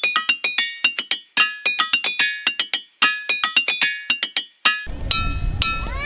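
Hammers striking diabase boulders, each blow ringing with a clear pitched note like a musical instrument. Different rocks give different notes, struck in quick runs of several blows a second. About five seconds in, it cuts to a slower scatter of ringing strikes over outdoor background noise.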